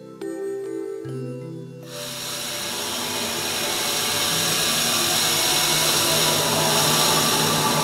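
Soft synthesizer background music, joined about two seconds in by a loud hissing, rushing sound effect of pressurized fluid jetting that swells steadily and peaks near the end.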